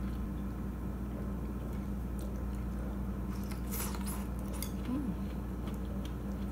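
Close-up eating sounds of a person biting and chewing soft oden pieces, with a few short wet mouth smacks and clicks, over a steady low hum. A brief closed-mouth "mm" near the end.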